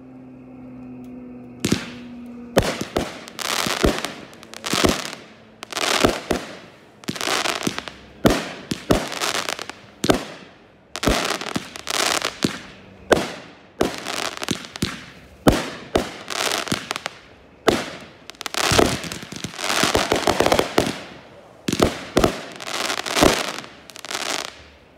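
Consumer aerial fireworks going off in quick succession. About two seconds in, a long string of sharp bangs begins, roughly one to two a second, each trailing off as the shells burst overhead.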